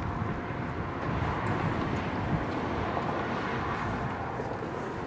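Steady outdoor ambience: wind buffeting the microphone over a broad rumbling hiss, with no clear single source.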